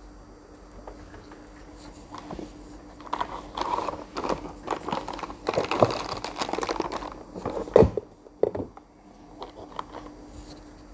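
Irregular crinkling and rustling with scattered clicks, busiest from about three to eight seconds in, and one sharp knock just before eight seconds; a faint steady hum runs underneath.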